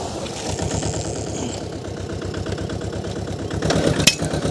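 Power tiller engine running at low speed with an even, rapid firing beat, the machine bogged in mud. A single sharp knock sounds about four seconds in.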